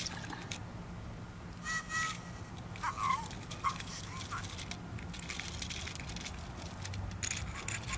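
A bird outside gives a short double honk about two seconds in, followed by a few brief gliding chirps a second or so later. A couple of light clicks come near the end.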